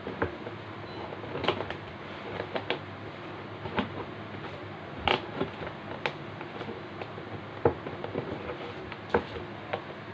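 A stiff clear plastic bag being handled and turned over, giving irregular crinkles and sharp crackles.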